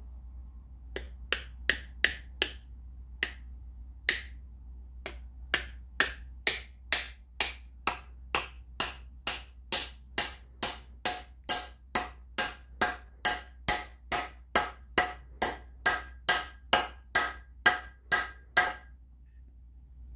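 Hammer blows driving a wedge into the top of a new handle in a Plumb axe head. A few scattered taps come first, then a steady run of strikes about two a second, the later ones with a metallic ring, stopping shortly before the end.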